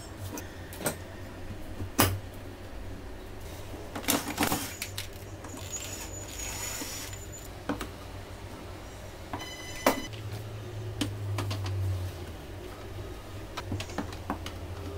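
Wooden rails and a plastic egg-turning tray being handled and slid into an incubator's aluminium-lined chamber: scattered knocks and clicks with a short scraping stretch, over a steady low hum.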